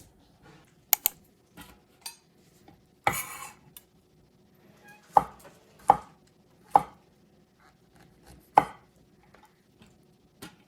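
Kitchen knife cutting food on a cutting board: single, separate knocks spaced irregularly about a second apart, with one longer, noisier stroke about three seconds in.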